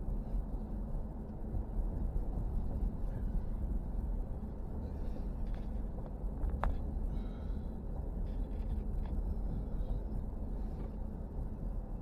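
Car driving at steady speed: a constant low rumble of engine and road noise, with a brief sharp chirp about six and a half seconds in.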